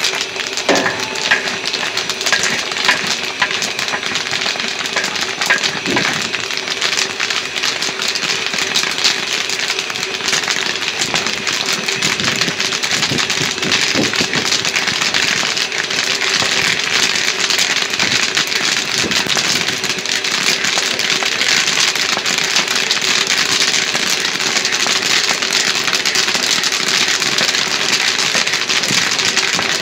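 Popcorn kernels popping in a dense, steady crackle in an open steel kettle-corn kettle, the pops coming thicker in the second half, over a steady low hum.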